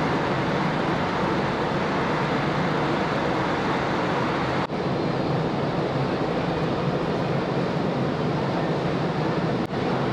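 Steady rushing noise of the ferry Ogasawara Maru under way, wind and water with a low hum underneath. It drops out for an instant twice, about halfway and near the end.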